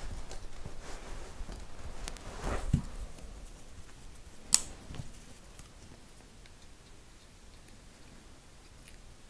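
Rustling handling noise as an adhesive rubber grip wrap and its paper backing are handled and peeled, with a soft knock about two and a half seconds in and one sharp click about four and a half seconds in, then only faint ticks.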